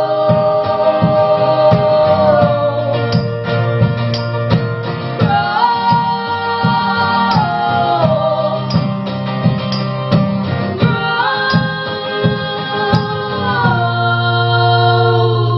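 Live band music: voices singing long held notes that step up and down over strummed guitar and a steady low bass note, with no lyrics heard.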